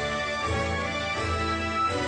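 Background music: an instrumental theme with a steady low pulse under changing notes.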